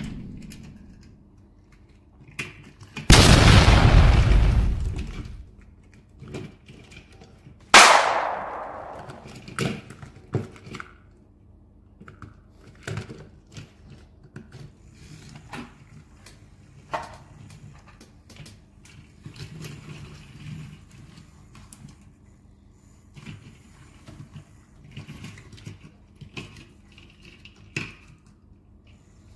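Small plastic clicks and clacks of toy train pieces being handled and coupled together. Two loud sudden noises stand out: a rushing crash about three seconds in that lasts nearly two seconds, and a sharp bang near eight seconds that fades away over about two seconds.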